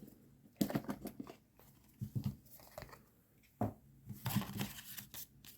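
Product packaging being handled and opened: irregular crinkling, rustling and tearing in several short bouts.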